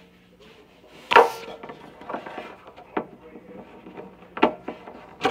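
A series of sharp knocks and clicks from objects being handled and set down on a hard surface, the loudest about a second in.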